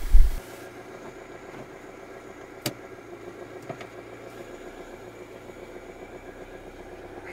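Hyundai car's engine just after starting: the loud start-up flare dies away in the first moment and the engine settles into a steady idle, heard from inside the cabin. A sharp click about two and a half seconds in and a fainter one a second later.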